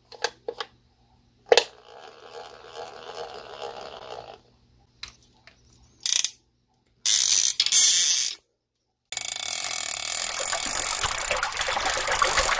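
Sharp mechanical clicks, then about three seconds of a whirring, ratcheting mechanism. Near the end come two long bursts of loud rushing hiss, the last one the loudest.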